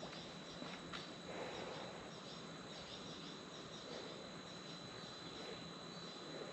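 Insects chirping faintly and steadily in the background, a high continuous trill with quick repeated chirps, with a faint click about a second in.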